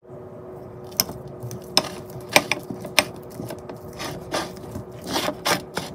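A metal fork mashing a peeled banana on a plate: soft squashing and scraping broken by irregular sharp clicks of the tines striking the plate, over a faint steady hum.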